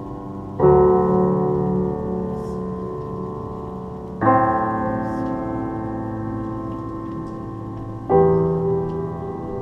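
Solo piano playing slow, sustained chords: three chords struck about four seconds apart, each left to ring and fade before the next.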